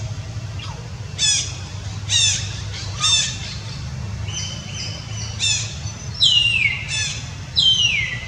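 A series of about seven short, high-pitched squawking calls, each sweeping down in pitch, the last two longer and sliding further down, over a steady low rumble.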